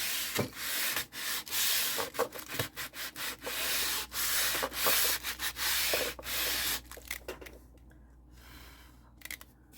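Sandpaper rubbed by hand in quick back-and-forth strokes over a glossy hardcover book cover, roughening the shiny surface so fabric glue will grip. The strokes stop about seven seconds in.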